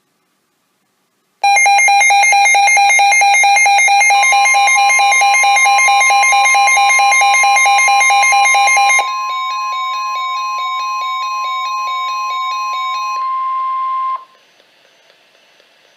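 Loud electronic alarm beeping in a rapid, even rhythm, joined about four seconds in by NOAA Weather Radio's steady 1050 Hz warning alarm tone, the sign that a warning is being broadcast. The beeping drops in volume about halfway through and fades out, and the steady tone cuts off suddenly near the end, leaving faint hiss.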